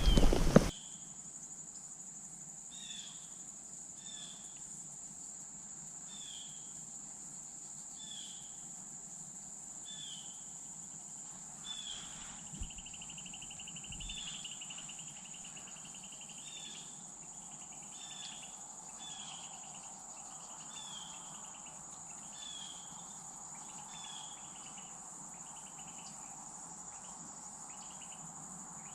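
Insects droning in a steady high pitch, with a short falling chirp repeated about once a second and a brief trill in the middle. A louder rustle of noise ends within the first second.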